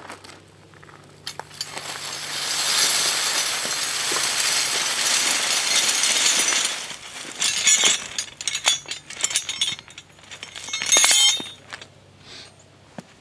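Steel harrow sections being pulled around and shifted: a scraping rush of metal on the floor for about five seconds, then a string of metal clanks and clinks.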